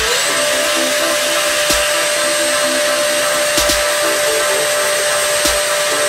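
Tefal Air Force cordless vacuum, used handheld with a crevice nozzle, switching into boost mode: its motor whine rises in pitch right at the start, then holds steady at the higher speed while it sucks up chili flakes. A few faint ticks come through the steady whine.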